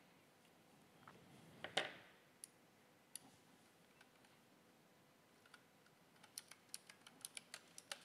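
Faint computer keyboard keystrokes and clicks: a few scattered ones with a louder click about two seconds in, then a quick run of about ten keystrokes near the end as figures are typed in.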